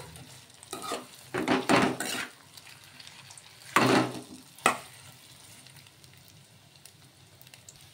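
A metal spoon scraping and stirring egg-coated soya chunks in hot oil in a metal kadai, a handful of strokes in the first five seconds or so. Under them the oil sizzles faintly, and the sizzle is all that is left near the end.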